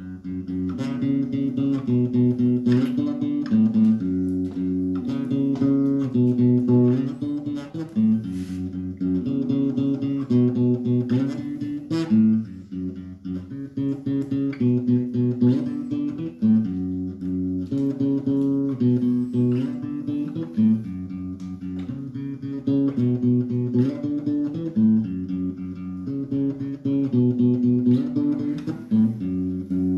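Acoustic guitar (violão) playing a steady, repeating chord progression, without singing.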